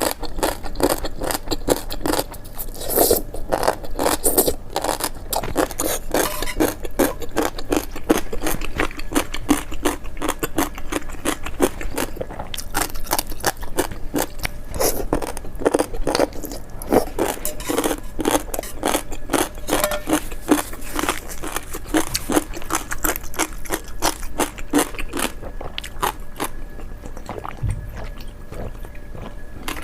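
Continuous irregular crunching and scraping, many short sharp sounds a second, slightly quieter near the end.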